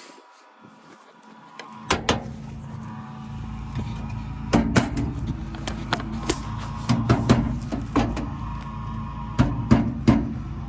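Battery charger switched on about two seconds in, then humming steadily while charging flat truck batteries, with a string of sharp clicks and knocks over the hum.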